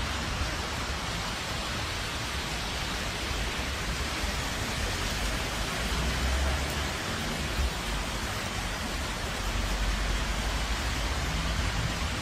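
Steady rain falling: an even hiss of water with low rumbles through it.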